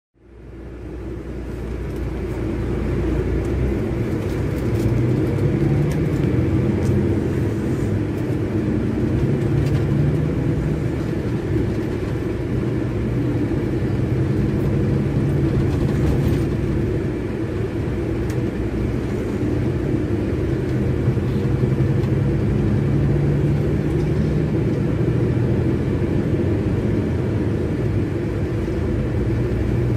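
Scania K400IB coach's rear-mounted inline-six diesel engine running, heard from inside the coach as a steady low drone that swells and eases a little every few seconds. It fades in over the first couple of seconds.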